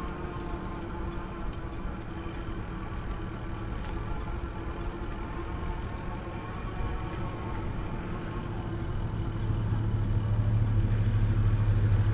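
An engine running steadily, with a low hum that comes up and grows louder over the last few seconds.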